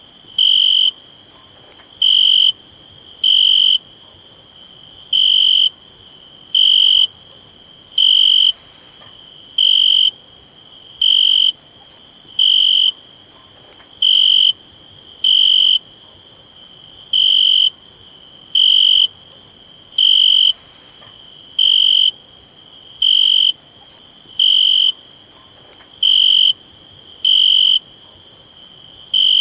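Cricket chirping: short high-pitched chirps repeated steadily about every second and a half, over a faint constant high hiss.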